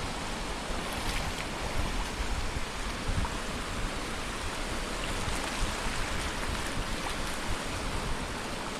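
Surf washing steadily onto a sandy beach, an even rushing noise with a low rumble underneath.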